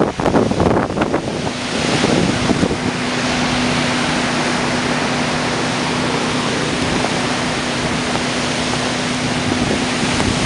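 Hurricane-force wind gusting at about 65–70 mph, a loud, dense rush of noise buffeting the microphone. From about a second and a half in until near the end, a steady low hum sits underneath.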